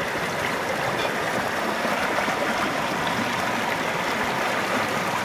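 River water flowing steadily, an even rushing wash of water noise.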